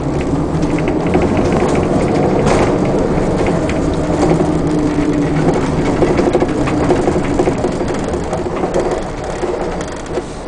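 A 2005 Fleetwood Bounder motorhome on the move, its Caterpillar turbo-diesel running steadily under a haze of road noise, easing off slightly near the end.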